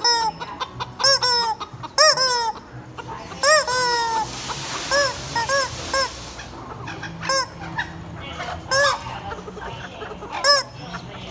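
A rubber chicken squeak toy being squeezed over and over, giving short honking squawks that rise and fall in pitch, often two in quick succession.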